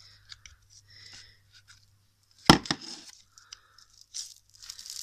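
Crunchy bead-filled slime squeezed and kneaded by hand, giving faint scattered crackles and pops. A single loud sharp crack comes about two and a half seconds in.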